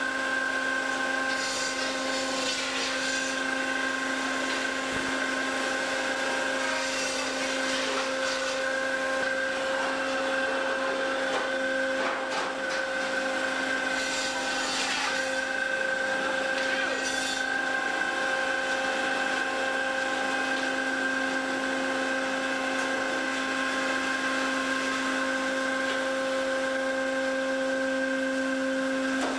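Fish-processing machinery running on a fishing vessel's factory deck: a steady pitched hum over a constant rushing noise, with an occasional knock or clatter.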